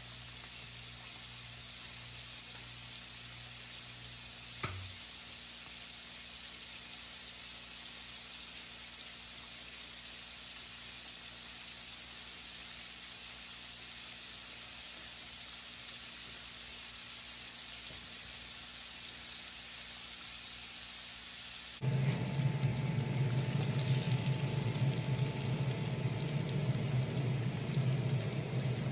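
Battered redfish pieces frying in a skillet of hot oil: a steady sizzle, with a single click about five seconds in. About three-quarters of the way through, the sound changes abruptly to a louder steady mechanical hum, like a running fan.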